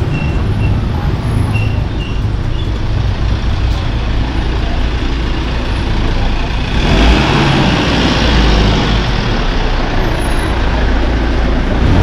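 Slow street traffic passing close by: the steady low rumble of car and minibus engines. About seven seconds in, a louder hiss swells up as the minibus comes alongside.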